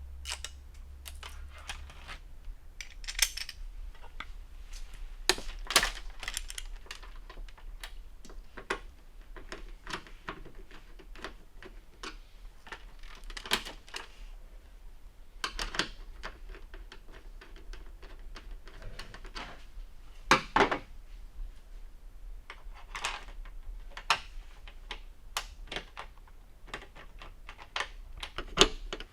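Irregular clicks, taps and light clatter of small hard parts and hand tools being handled while a rear light bracket is assembled, with a few louder knocks scattered through.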